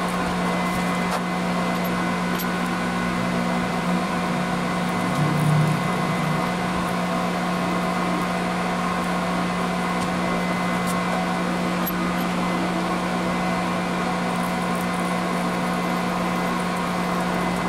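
Drilling machine's spindle running steadily while a twist drill cuts tap-drill holes through a steel part: a constant hum with a few held higher tones, briefly louder about five seconds in.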